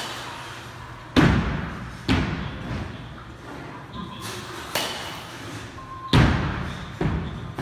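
Two-piece Mizuno Covert USA bat with an alloy barrel striking baseballs: a series of about five sharp hits and thuds, each with a short ringing tail, the loudest about a second in and about six seconds in.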